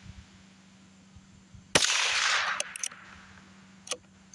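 A single shot from a Rossi RB22 bolt-action .22 LR rifle about two seconds in, with a sharp crack that echoes away over about a second. A faint click comes near the end.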